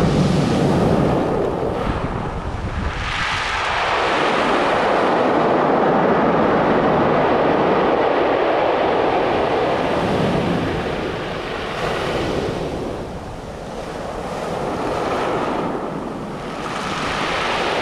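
Sea waves breaking and washing up over a pebble (shingle) beach, in surges that swell and ease every few seconds.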